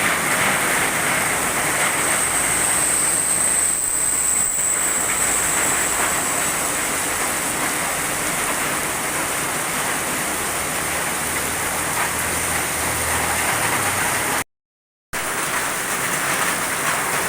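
Heavy rain pouring steadily, a dense hiss of rain falling on surfaces. The sound cuts out completely for about half a second near the end.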